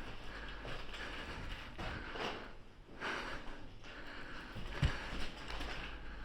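Rustling and scuffing movement noise close to the microphone, coming and going about once a second, with one dull thump about five seconds in.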